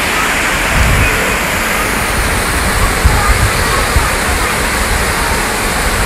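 Water cascading down a tiered rock waterfall into a pond: a steady rushing splash.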